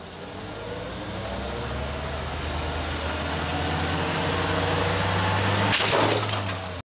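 Car engine revving with the front wheel spinning free, rising steadily in loudness and pitch. Near the end a short metallic clatter as the wheel cover flies off.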